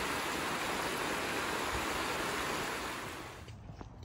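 Creek water rushing over the low concrete weir of a fish ladder, a steady rush of white water that fades quickly about three seconds in.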